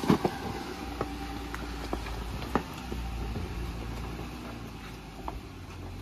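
A Jeep crawling slowly along a rough off-road trail: a steady low engine rumble with scattered sharp knocks and clicks.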